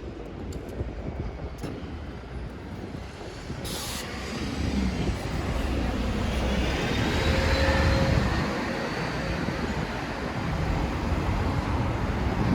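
Passing traffic on a city street: a vehicle's low rumble builds to its loudest about eight seconds in and then eases off, with a faint rising whine as it goes by. There is a short hiss about four seconds in.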